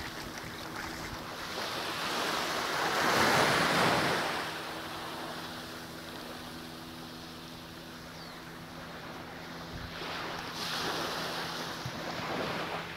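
Small sea waves washing onto a sandy beach, swelling loudest about three to four seconds in and again near the end.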